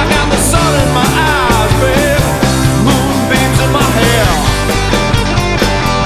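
Rock music with no singing: a full band with steady drums and bass under a lead line that slides up and down in pitch.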